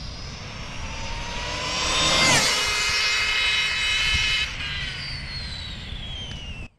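Electric RC speed-run car making a full-throttle pass at about 102 mph. Its high motor and gear whine rises as it approaches, drops sharply in pitch as it passes a little over two seconds in, then falls away, and the sound cuts off suddenly near the end.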